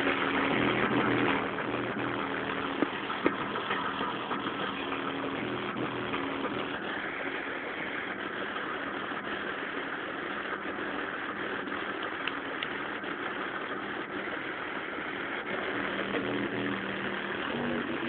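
Toyota Starlet's engine running, heard from inside the car as a steady noise. Bass-heavy music from the car stereo fades out in the first second or two.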